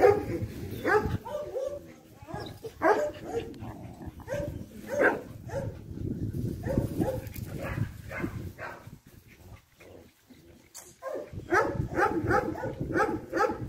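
Dogs barking in short bursts as they play together. There is a quieter spell about two-thirds of the way in, then a quick run of barks near the end.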